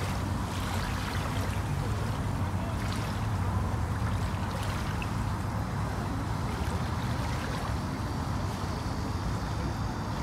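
Small waves lapping at a muddy wetland shore over a steady low rumble.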